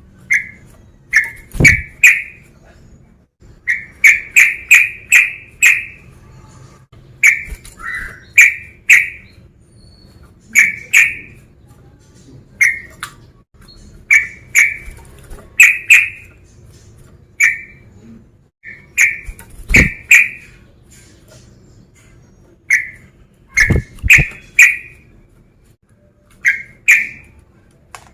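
Male yellow-vented bulbul (trucukan) calling: short, bubbly notes in quick groups of two to five, repeated every second or two. This is the male's loud challenge call, the kind used to provoke rival birds.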